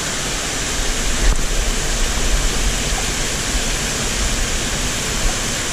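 Mountain stream rushing over rocks in a small cascade: a steady, loud roar of water.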